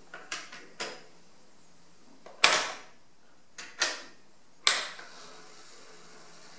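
Piano-key transport buttons of a Tandberg TCD 310 cassette deck being pressed: a few light clicks in the first second, then three loud mechanical clunks about a second apart.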